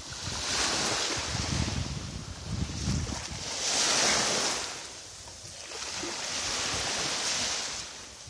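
Small waves washing onto the shore, their hiss swelling and fading every couple of seconds. In the first few seconds wind rumbles on the microphone.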